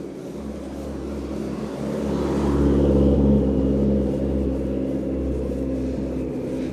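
Car with a loud engine driving past on the street, getting louder to a peak about three seconds in and then fading away.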